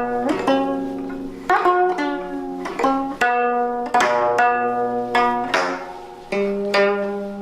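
Gayageum, the Korean plucked zither, playing a slow melody: single plucked notes about once a second that ring and fade, several bent in pitch just after the pluck.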